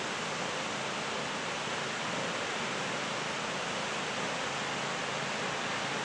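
Nunobiki Falls, a tall waterfall, rushing steadily: an even hiss of falling water that does not change.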